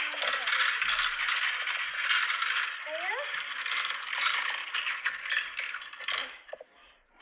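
Plastic marble run rattling continuously, with dense small clicks of marbles and hard plastic pieces, dying away about six seconds in.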